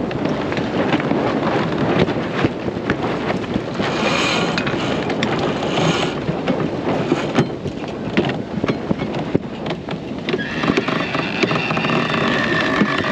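Wind on the microphone and water rushing along the hull of a sailboat under way, with scattered sharp clicks and knocks as the crew work the sheets on the cockpit winches.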